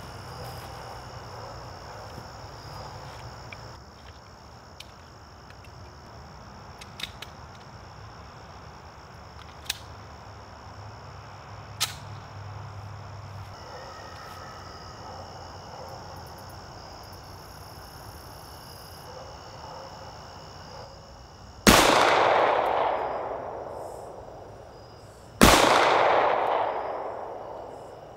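SIG P220 .45 ACP pistol fired twice, about four seconds apart, near the end. Each loud shot is followed by a long echo dying away over about three seconds. Before the shots there are a few faint sharp clicks over a steady high insect hum.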